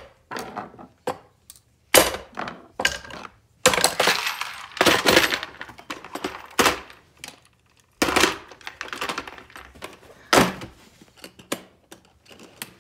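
Hard objects being handled, with irregular clattering knocks and metallic clinks, some in quick rattling runs and some on their own, with short pauses between.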